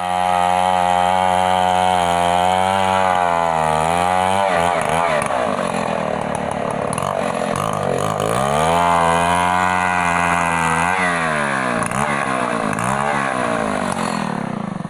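Stihl MS 070 two-stroke chainsaw running under load, ripping a gmelina log lengthwise into planks. The engine pitch sags and recovers several times as the chain bites into the wood.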